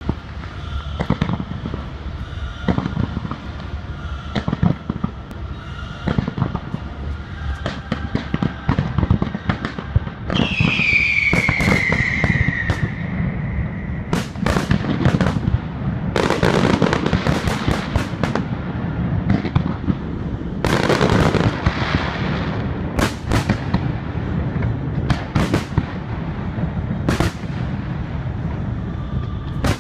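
Fireworks display: a steady run of sharp bangs and crackling from bursting shells, thickest in the middle, with a whistling firework falling in pitch about ten seconds in.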